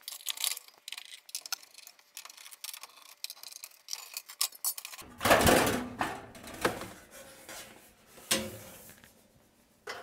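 Quick, light metallic ticking as a screwdriver backs a screw out of a gas range's thin steel rear panel. About five seconds in, the panel rattles and scrapes loudly as it is lifted off, then gives two sharper knocks as it is set down.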